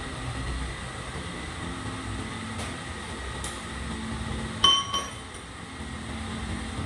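A piece of metal strikes metal with one sharp, ringing clink about two-thirds of the way in, followed by two or three lighter rattles. A steady low machine hum runs underneath.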